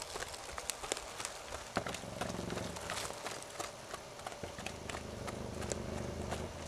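A pony's hooves striking the arena footing as it moves out around the ring, a quick, uneven run of light thuds and clicks.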